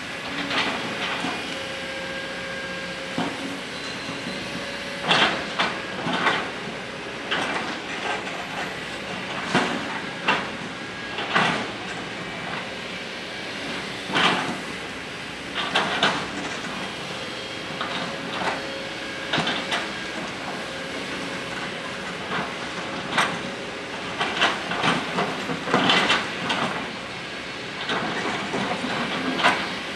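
Kobelco SK200 hydraulic excavator's diesel engine and hydraulics running steadily under load. Over it come repeated sharp, irregular knocks and clatters as the bucket scrapes and strikes a rock cliff face and loosened rock falls away.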